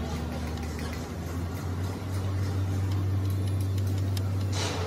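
Hand ratchet wrench clicking in short, irregular strokes as bolts on a truck gearbox casing are worked loose, over a steady low hum. A brief rush of noise comes just before the end.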